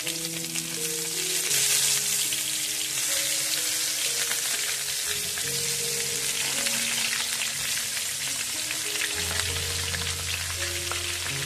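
Turmeric-coated aubergine slices sizzling steadily as they shallow-fry in hot oil in a frying pan. A soft background melody plays underneath.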